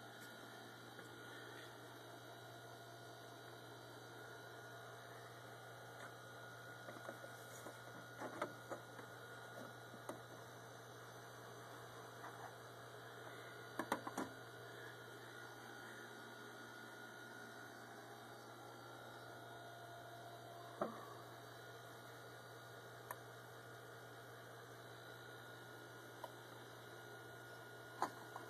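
Steady low electrical mains hum with a faint high whine over it, broken by a few soft clicks and knocks, the loudest about 14 seconds in.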